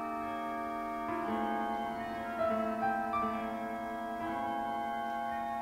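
Slow piano music: held, overlapping notes, with a new note or chord entering every second or so.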